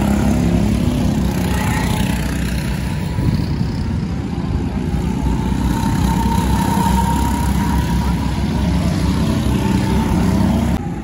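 Go-kart engines running on the track: a continuous engine drone, with one higher engine note standing out around the middle.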